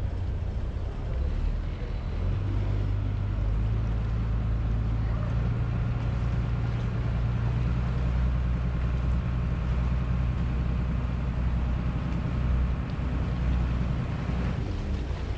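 A tour boat's engine runs with a steady low drone while the boat motors through the harbour, picking up slightly about two seconds in, with water rushing along the hull.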